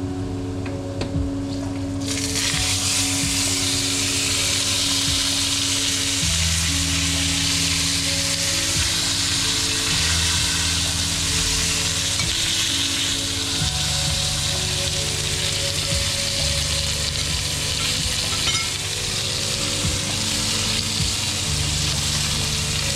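Chuletón (bone-in beef steak) searing in a hot pan: the sizzle starts suddenly about two seconds in, as the meat goes down, and then keeps up a steady hiss.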